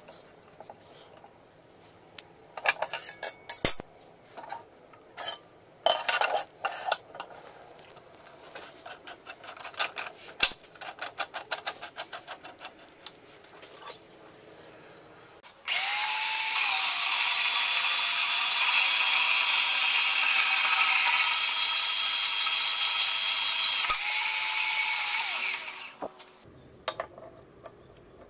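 Clinks and knocks of a steel tube and vise being set up, then about halfway through a power metal-cutting saw cuts through steel rectangular tube at a 45° mitre: a loud, steady cutting noise for about ten seconds that stops a couple of seconds before the end.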